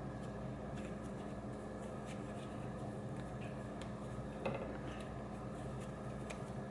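Soft handling sounds of bread dough being pinched off and rolled into balls by hand on a floured counter: faint rubs and light taps, with one sharper knock about four and a half seconds in. A steady low hum runs underneath.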